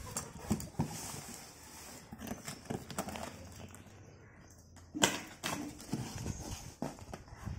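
Taped cardboard shipping box being handled: light knocks and scrapes from hands on the carton, then a sharp crack about five seconds in as the taped flaps are pulled open.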